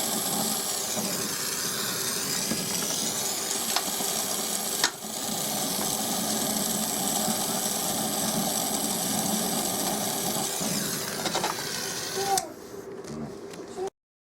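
A steady machine sound, a loud hiss over an even hum, that stops about twelve seconds in.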